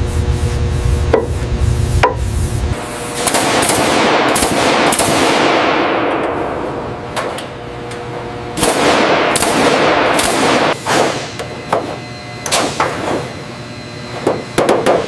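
Riveting on aluminium aircraft wing panels: sharp metallic strikes, with long rushing noise swells in the middle and quick runs of strikes near the end. A low hum stops a few seconds in.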